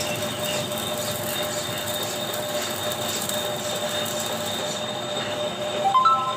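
Electric arc welding: a steady crackling sizzle as steel support braces are welded onto a trailer's channel frame. Near the end, a few short tones step upward.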